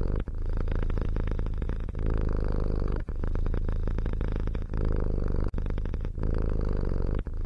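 A cat purring steadily, the purr breaking off briefly every second or so.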